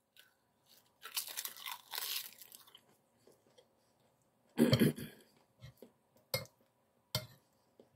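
A crisp sheet of olive-oil-baked roasted seaweed (kim) being bitten and crunched in the mouth, a crackly crunching for about two seconds. A brief louder sound comes about halfway, then a few light clicks.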